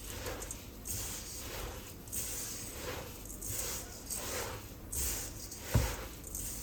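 Repeated gritty swishing strokes of hands-on kitchen preparation, about one to two a second, with one sharp thump near the end.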